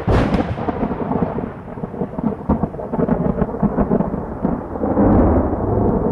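Thunder: a sudden loud onset, then a long continuous rumble with crackles through it.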